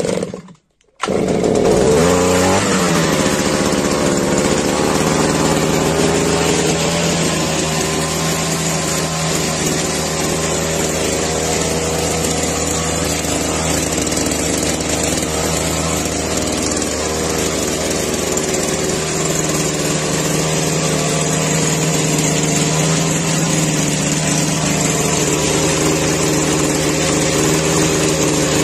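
Petrol brush cutter's small two-stroke engine cold-started with the recoil pull cord: the last pull ends at the start, the engine catches about a second in, its pitch swings briefly, and then it settles into a steady idle.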